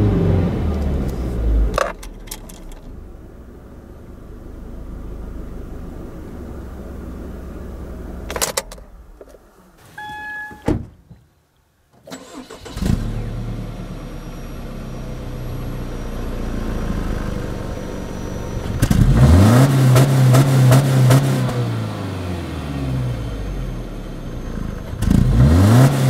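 Subaru XV's boxer four-cylinder engine revved while parked. At first it falls back from about 3000 rpm to idle. Then, heard at the tailpipe, it idles and is revved up twice, the pitch rising, holding high for a couple of seconds, and falling back.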